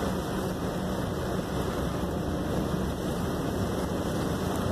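Steady rumble of a car driving on a rain-soaked road, heard from inside the cabin: engine hum with tyres on wet tarmac and rain on the car.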